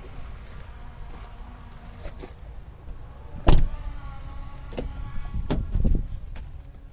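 A loud slam on the car body about halfway through, followed by several lighter clicks and knocks, as of a door or liftgate latch being worked.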